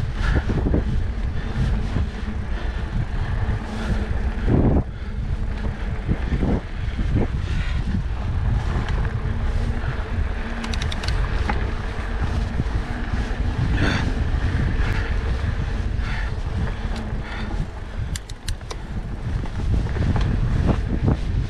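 Wind buffeting the microphone over the rumble of a Trek Stache hardtail's plus-size tyres rolling on dirt singletrack, with knocks and rattles from the bike over bumps. Two brief runs of fast ticking come partway through and near the end.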